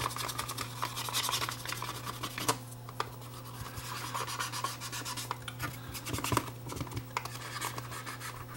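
Fingers rubbing and scratching over the case of a Sony Walkman WM10 cassette player, in short irregular scrubbing strokes, cleaning grime off it. A steady low hum runs underneath.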